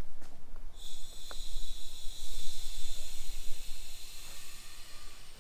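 Compressed air hissing steadily through a leak-down tester fed into a cylinder of a Mitsubishi 4G63T engine, coming on suddenly about a second in as the air supply is opened.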